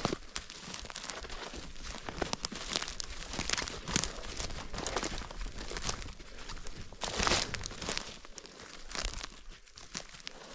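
Irregular rustling and crunching of dry leaves and brush, as of footsteps and movement through the leaf litter on the forest floor, with a louder patch about seven seconds in.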